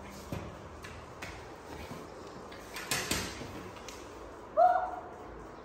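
A few light taps against a glass door and a brief rustle about three seconds in, then a short, high, bending squeak from a baby monkey about four and a half seconds in, the loudest sound here.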